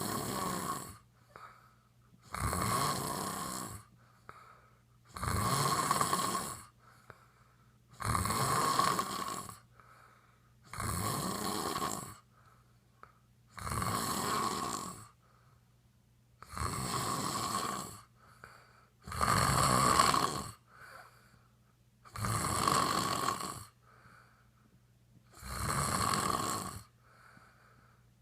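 A man snoring loudly in a steady rhythm, about ten snores, one roughly every three seconds, each lasting about a second and a half.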